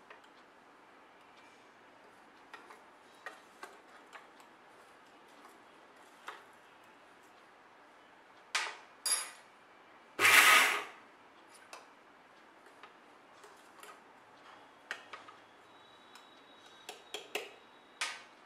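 A steel spoon scraping and tapping in a stainless-steel mixer-grinder jar gives scattered light clicks. About nine seconds in come two sharper clicks as the lid goes on, then a loud rushing whirr just under a second long: a single short pulse of the mixer grinder. More small clicks follow near the end.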